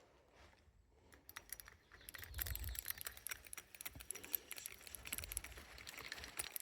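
Rapid jangling, clicking rattle of small hard objects being handled. It builds from about a second in and stops abruptly at the end.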